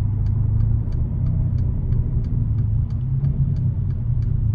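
Mercedes-Benz SL550's twin-turbo 4.7-litre V8 running steadily at light load through its exhaust with cutouts, heard from inside the car. A light regular ticking, about four a second, comes from the turn-signal indicator.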